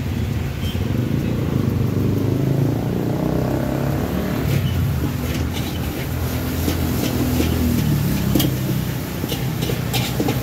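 Traffic on the road beside the cart, motorcycle and car engines running past in a steady rumble. In the second half a metal spatula clanks and scrapes against the wok in short sharp strokes.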